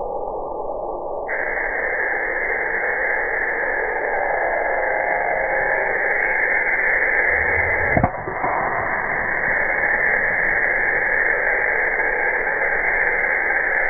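Slowed-down sound of a golf drive: a steady, muffled hiss, broken by a single low thud about eight seconds in as the driver strikes the ball off the tee.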